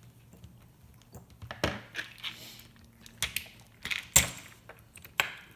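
Sharp metal clicks and scraping in several short bursts as the metal connecting tabs on a drill battery pack's cells are pried up with a screwdriver and cut with tin snips.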